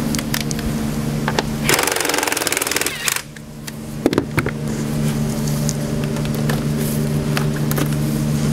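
A steady low mechanical hum runs throughout. About two seconds in it is broken by roughly a second and a half of rapid, even mechanical buzzing, followed by a few light knocks.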